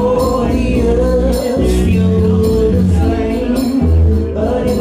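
Live rock band playing: a held, wavering lead vocal over bass, guitar and drums, recorded from far back in the crowd.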